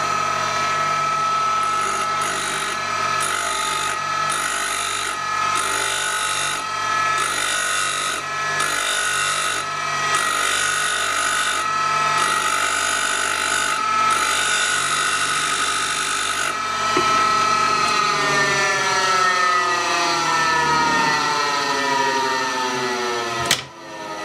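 Small bench tool grinder running while a high-speed-steel lathe threading tool is fed across its wheel about ten times, each pass a hiss of grinding lasting about a second, finishing the tool's 60-degree profile. After the last pass the grinder runs down, its hum sliding lower in pitch, and a sharp click comes near the end.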